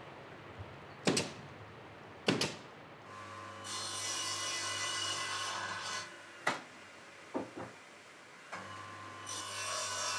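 Workshop sounds: two sharp knocks, then two spells of about three seconds each of a small power tool running with a low hum, working material, with a few clicks in between.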